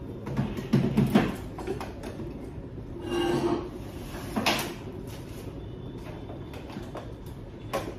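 Kitchen handling sounds as a rice cooker's metal inner pot is set into the cooker: clattering knocks about a second in, a short tone a few seconds in, then single knocks twice more.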